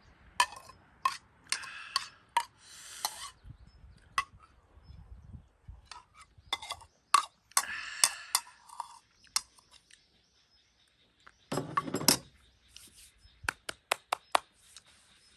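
Eating utensils clinking and tapping against dishware during a ramen meal, in irregular sharp clicks, with a longer, duller clatter about twelve seconds in.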